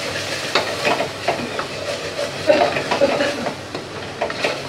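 Wooden spatula stirring and scraping onion-tomato masala with ground spices as it fries in oil in an aluminium pressure cooker: a sizzle under repeated, uneven scrapes against the pot's base.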